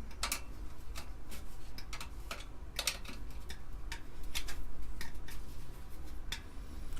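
Light clicks and taps, about ten at irregular intervals, from handling the parts of an Amiga 500 during disassembly: its motherboard and metal RF shielding. A low steady hum underneath.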